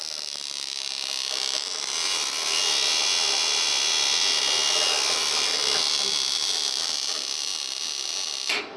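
Homebuilt pulsed neon laser, made from a nitrogen laser tube, running: its high-voltage discharge and power supply give a steady, high-pitched buzzing hiss that grows a little louder over the first two seconds.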